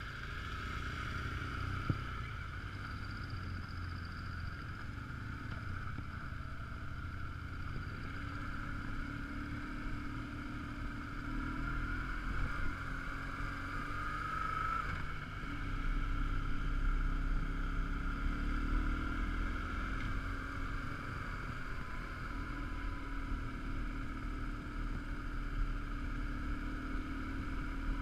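BMW R1150GS Adventure's air-cooled boxer twin engine running at low revs on a gravel track, its pitch rising and falling a few times with the throttle over a steady low rumble.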